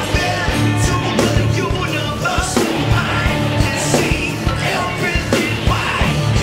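Live rock band playing loudly, with a drummer beating a Pearl drum kit in a steady rock beat under guitars and cymbals.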